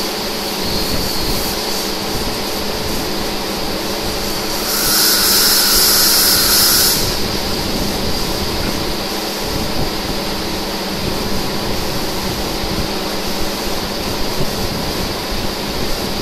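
Steady machinery din of an engine repair workshop, with a constant hum under it. About five seconds in, a loud high hiss, like a blast of air, cuts in for about two seconds and then stops.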